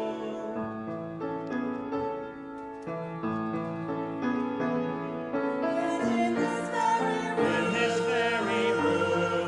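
A small vocal quartet sings in harmony with piano accompaniment. The piano plays alone at first, and the fuller, louder singing comes in a little past halfway.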